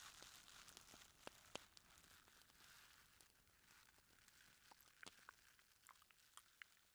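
Faint ASMR mouth sounds: scattered soft clicks of lips and tongue over a low hiss that fades away.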